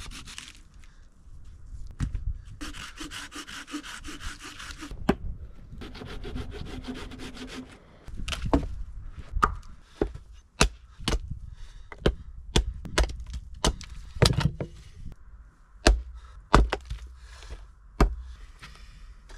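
A folding hand saw rasping back and forth through a log in three short spells, then, from about eight seconds in, a small axe splitting firewood on a wooden chopping block: a string of sharp chops roughly once a second.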